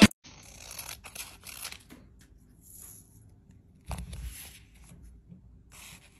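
Scissors snipping through a sheet of paper stickers, with soft paper rustling between cuts; the loudest cut comes about four seconds in.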